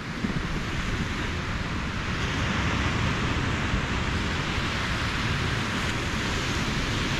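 Steady rushing noise of wind and surf, with wind rumbling on the microphone.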